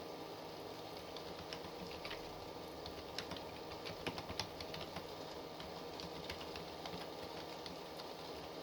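Typing on a computer keyboard: irregular keystroke clicks at a steady working pace, with a few louder taps about three to four and a half seconds in, over a steady low background hum.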